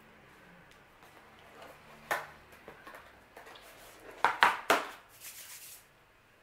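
Tabletop handling noises as a cardboard takeaway box is closed and a fork is set down. There is a single knock about two seconds in, a cluster of sharp clacks just after four seconds, then a short rustle.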